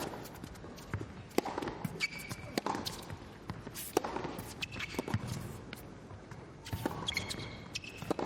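Tennis rally: a ball struck back and forth with racquets, sharp hits about once a second, with short high squeaks from shoes on the court in between.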